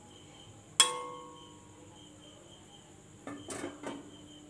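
A metal cooking utensil strikes the kadai once about a second in, a single ringing clink that fades over about a second. A few lighter knocks against the pan follow near the end.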